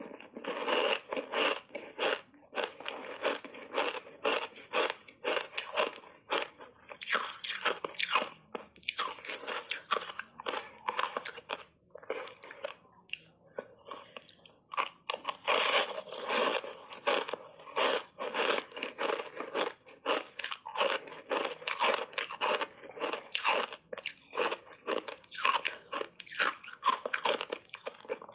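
Ice coated in matcha green tea powder being bitten and chewed: dense, irregular crunching and cracking, several crunches a second, with a short pause about halfway through.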